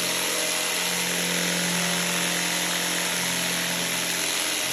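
Electric jigsaw running steadily as it cuts through wood, a continuous motor hum under the rasp of the blade.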